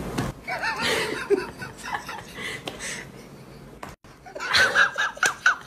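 A person laughing in short high-pitched giggles, in two bouts: one near the start and another just after a break about four seconds in.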